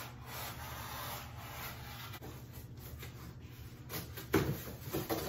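Large cardboard sheet scraping and rubbing against a wall and wooden shelving as it is slid into place, with a few louder knocks about four seconds in as it is pushed against the shelves.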